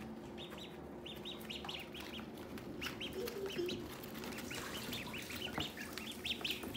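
A group of Pekin ducklings peeping: many short, high peeps that overlap irregularly and grow busier in the second half.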